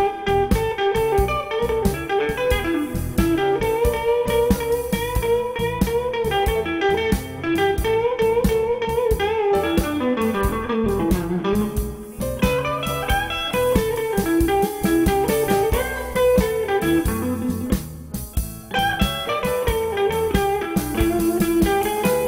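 Live blues band playing an instrumental passage: a Stratocaster-style electric guitar takes a single-note solo with sliding, bent notes over the band's accompaniment.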